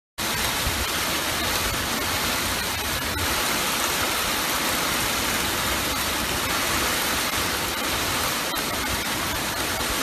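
Torrential typhoon rain pouring down, driven by strong wind: a steady, dense hiss of water.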